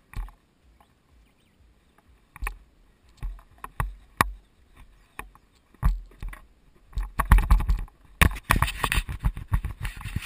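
Wind buffeting a helmet-mounted camera's microphone during a fast downhill longboard run. It comes as scattered thumps and crackles at first and builds to near-continuous buffeting from about seven seconds in, mixed with the rolling of longboard wheels on asphalt.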